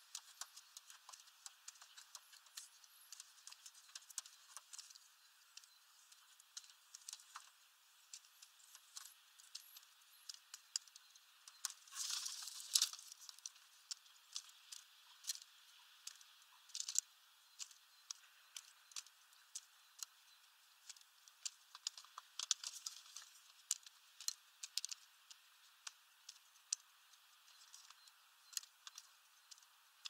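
Feral pigeon pecking through sunflower seeds in a feeder tray: irregular sharp clicks and seed rattles, with a denser burst of rustling about twelve seconds in.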